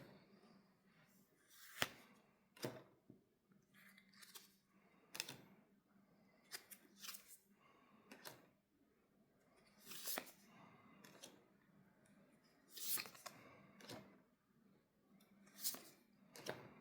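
Faint, irregular rustling, crinkling and clicking as a Pokémon trading-card booster pack is opened and its cards are handled.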